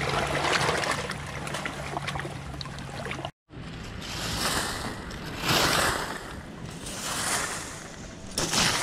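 Small waves washing and lapping among jagged shoreline rocks. After a sudden break, a broom sweeps gravelly dirt and dry leaves in four long scraping strokes.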